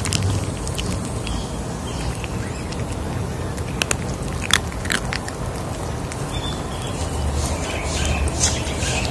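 Two kittens chewing dry kibble from a dish: irregular crunches and clicks of the pellets breaking, with a few sharper crunches about halfway through.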